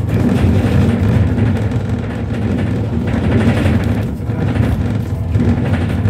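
Switch Mobility MetroCity battery-electric single-deck bus on the move, a steady low rumble of road and running noise that eases slightly about four seconds in.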